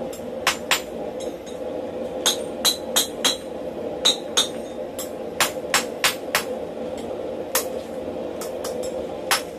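Blacksmith's hand hammer striking a thin steel rod on an anvil and a swage block: sharp, ringing blows in quick runs of two to five, with short pauses between runs. A steady hum runs underneath.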